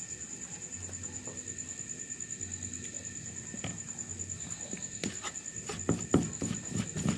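Plastic rice paddle stirring, scraping and knocking against a plastic bowl as carp bait dough is mixed, a quick run of knocks in the last two seconds. Before that only faint handling sounds, from fingers crumbling cheese into the bowl.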